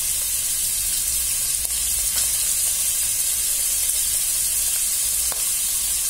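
Steady sizzle of pre-boiled chicken pieces frying in oil in a non-stick kadai, being browned. A few faint ticks sound over the sizzle.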